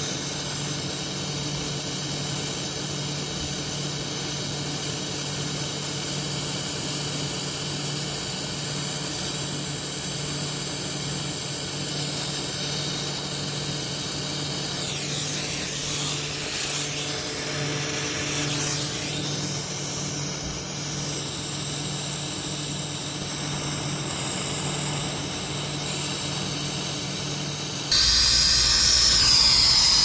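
Handheld torch flame hissing steadily as it heats a copper water-pipe joint to solder on a coupling. The hiss changes and a low rumble comes in near the end.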